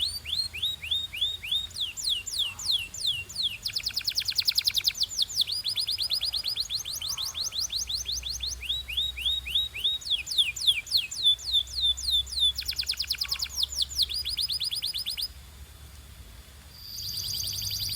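Domestic canary singing: rapid trills of repeated down-sweeping notes, each phrase at a different speed. The song breaks off about fifteen seconds in and comes back near the end with a held whistle under the trill.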